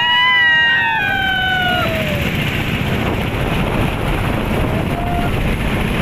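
Wooden motorboat running steadily under way, its engine and wind noise constant. A man lets out a long high whoop in the first two seconds that slides down in pitch.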